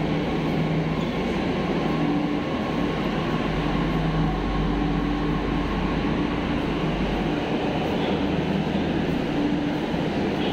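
Underground metro platform noise: a Delhi Metro train standing at the platform, its electrical and ventilation hum coming and going over a steady wash of station noise, with a deeper rumble swelling for a few seconds in the middle.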